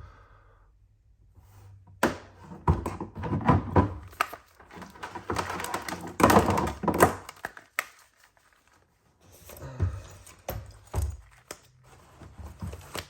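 Knocks and clicks of hard objects being handled on a bench, in two busy stretches with a short silent gap about eight seconds in.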